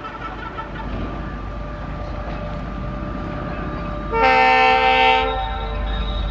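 WDP-4D diesel locomotive approaching with a steady low engine rumble that grows. About two-thirds of the way through it sounds a loud multi-tone horn blast lasting about a second.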